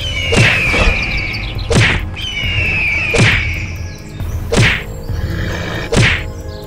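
Cartoon fight sound effects: five whacking blows, about one and a half seconds apart, with a repeated high falling screech between them, over background music.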